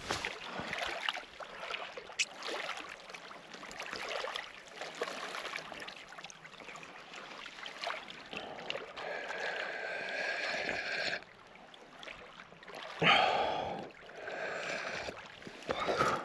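Small waves lapping on a stony lakeshore, with shifting and handling noise and a louder short burst of noise near the end.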